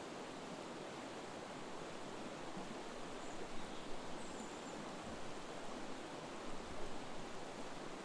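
Steady rush of a flowing river, with a couple of faint high bird chirps three to four seconds in and a few soft footfalls on grass in the second half.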